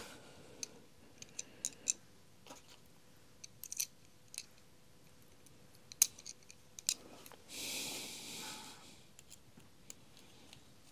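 Scattered light clicks and taps of a Deli DL91150 stainless-steel digital caliper being handled, with one scrape lasting about a second, about three-quarters of the way through.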